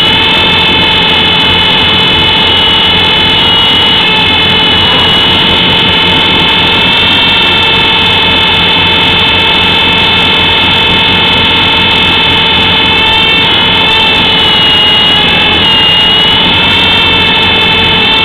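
Micro RC helicopter's small electric motors and rotors whining steadily, very close, as heard from the keychain camera it carries. The pitch dips and rises briefly a few times near the end as the throttle changes.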